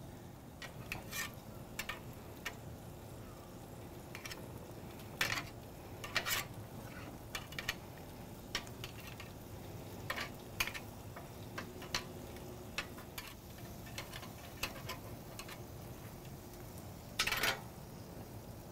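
Scattered clicks and clinks of grilling tools, steel tongs and a basting brush knocking against the grill grate and a glass bowl as beef ribs are turned and basted, with a longer rattle near the end. Under them a faint steady hiss.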